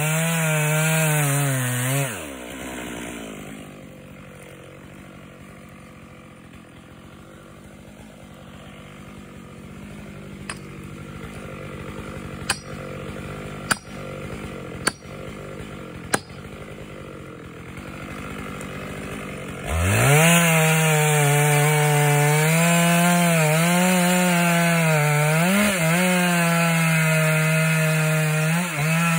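Chainsaw cutting at high revs, then dropping away about two seconds in. A quieter stretch follows with about five sharp strikes, sledgehammer blows. Near the end the saw revs up and cuts again.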